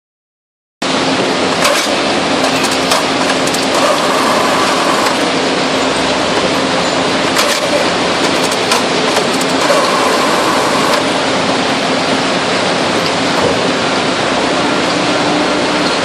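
International Baler TR12-T100 two-ram cardboard baler running: a steady, loud machine noise with a low hum from its hydraulic power unit, and scattered sharp cracks and clicks as a compressed bale of cardboard is pushed out of the chamber.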